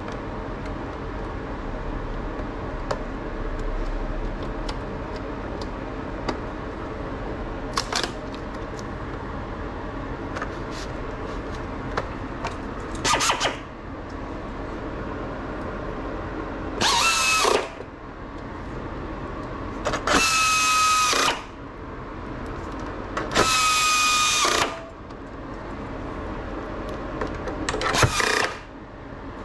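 A small handheld power tool's motor whirring in about five short bursts in the second half, each lasting up to a second or so, with light clicks and taps between them. A steady hum runs underneath.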